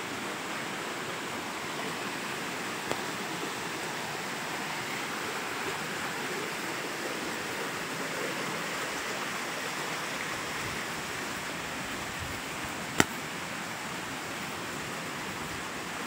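Heavy rain falling steadily, an even hiss of rain, with one sharp click late on.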